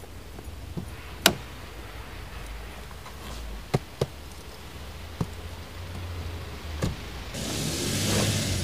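Car door sounds as someone opens the driver's door and gets in: a sharp click about a second in, two clicks close together around four seconds, then softer knocks. Near the end a steady rushing noise with a low rumble sets in as the car starts and moves off.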